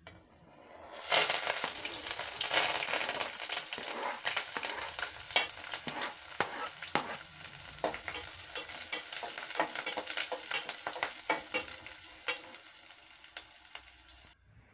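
Chopped onions, green chillies and curry leaves sizzling and crackling in hot oil and mustard seeds in a metal pot, stirred with a metal spoon: the first frying step of upma. The sizzle starts about a second in and cuts off suddenly near the end.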